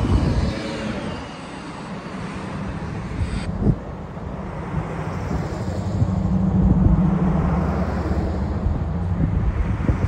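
Low, steady engine hum from vehicles, swelling a few seconds in. Two sharp knocks, near the start and a little before halfway, sound like the camera being handled.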